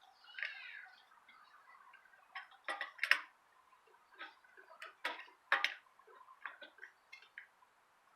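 Irregular sharp clicks and taps from hands-on work on a bicycle wheel's spokes, about a dozen scattered over several seconds. A brief falling squeak sounds near the start.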